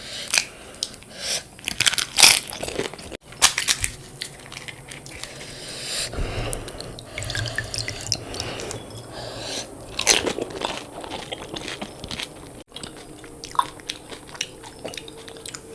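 Close-up crunching and chewing of pani puri: the crisp hollow puri shells crack between the teeth in clusters of sharp crunches, with chewing in between.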